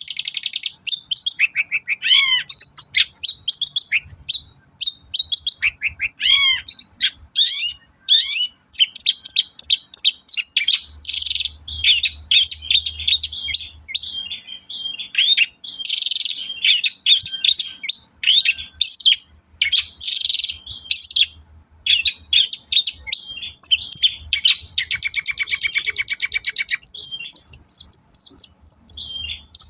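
Long-tailed shrike singing hard and non-stop: a fast, varied run of short chirps, sweeping whistles and harsh notes, with a rapid rattling trill near the end.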